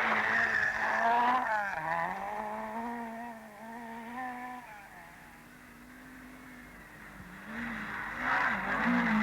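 Citroën Visa rally car engine revving hard and changing up a gear in the first couple of seconds, then holding its revs and fading away. Near the end a car comes close again, loud with engine and a rush of tyre and loose-surface noise.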